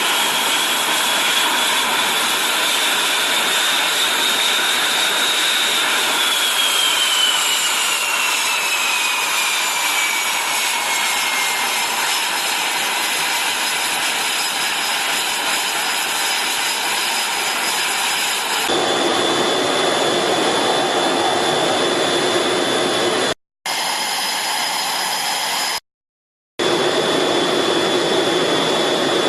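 Jet aircraft engines running loud on an aircraft carrier flight deck, a dense rush with a high whine that glides down in pitch partway through. The sound changes abruptly and drops out briefly twice near the end.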